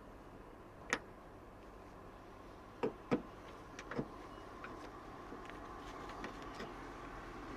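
A few sharp clicks and taps of metal parts and a small screwdriver, handled while swapping a car's tailgate gas strut: one about a second in, a close pair about three seconds in, another soon after, then lighter ticks.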